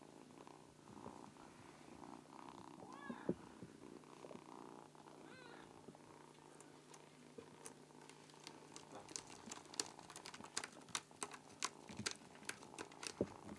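A kitten's claws on a sisal scratching post: from about halfway on, a quick irregular run of sharp clicks and scratches as it climbs and grabs at the sisal rope. Two short high chirping cries come earlier, a few seconds apart.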